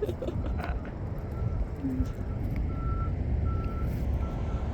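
Vehicle backup alarm beeping repeatedly, a little faster than once a second, starting about a second in, over a steady low rumble.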